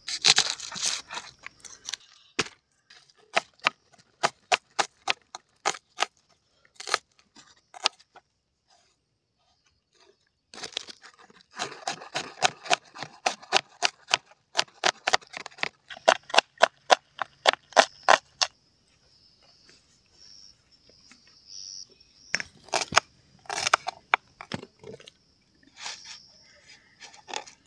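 Kitchen knife chopping red onions on a plastic cutting board: sharp taps of the blade hitting the board, in runs with pauses between, the fastest run at about three taps a second in the middle.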